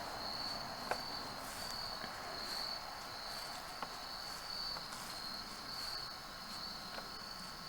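Insects trilling in a steady chorus, a high pulsing buzz that swells and fades in regular beats, with a few faint ticks.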